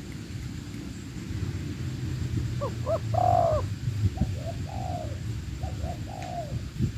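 Spotted dove (tekukur) cooing: from about two and a half seconds in, a few phrases of short notes followed by longer arched coos, over a steady low rumble.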